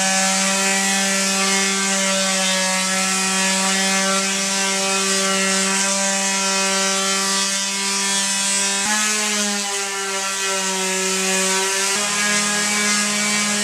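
A motor-driven machine running steadily: a continuous hum with a strong whine and a hiss above it. Its pitch shifts slightly about 9 seconds in and again about 12 seconds in.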